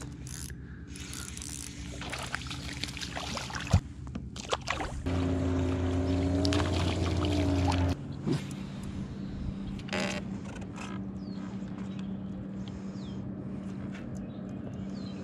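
A boat engine running steadily, heard across open water. About five seconds in it grows louder for some three seconds, its pitch wavering, then settles back to a steady hum. A few sharp clicks come just before the loud stretch.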